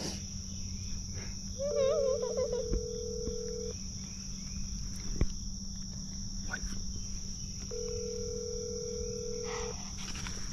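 Telephone ringback tone from a phone's speaker as an outgoing call rings: two steady two-second rings about four seconds apart, the standard North American ringing signal. A steady high insect drone runs underneath.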